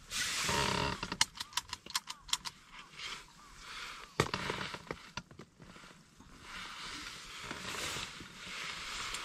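Handheld mechanical tally counter being clicked: a quick run of sharp clicks about a second in, then a single louder click after about four seconds and a few more near the end, with rustling of clothing.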